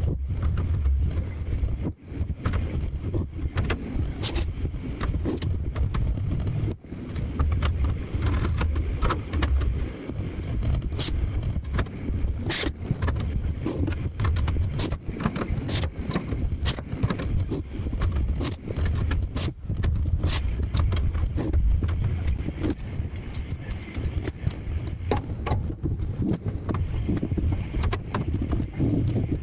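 Sped-up shop work: a quick run of metallic clanks and knocks over a steady low rumble as steel slats are set into a CNC plasma table.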